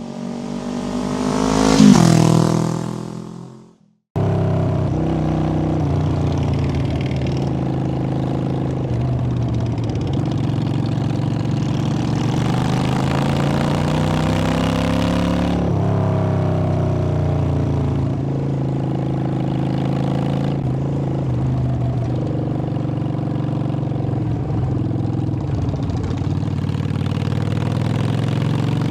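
A motorcycle engine grows louder and rises in pitch as it passes close, then fades away and cuts off. After a brief break, a Honda Shadow VT600's V-twin engine runs under way, its pitch climbing as it accelerates and dropping sharply at a gear change.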